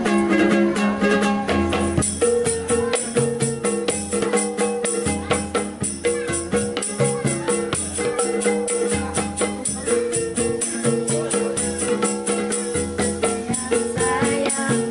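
Acoustic street-busker band playing a song intro with a steady beat: ukulele strumming chords, a tambourine jingling on every beat and a hand drum made of plastic pipes giving the low thumps. Voices join in singing near the end.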